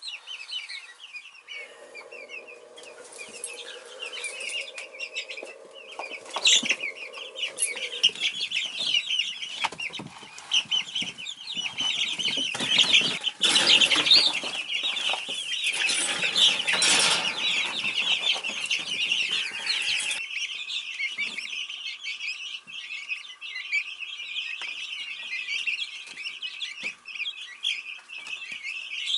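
A brood of young Easter Egger chicks peeping continuously in many overlapping high chirps. Rustling, scuffling and knocks in the brooder grow loud around the middle, while bread is put in among them.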